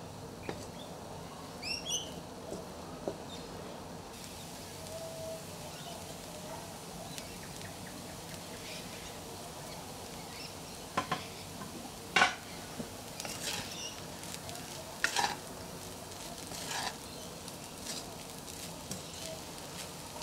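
Fried rice sizzling in a pan while a spatula stirs and tosses it. Sharp scrapes and knocks of the spatula against the pan start about halfway through and come several times.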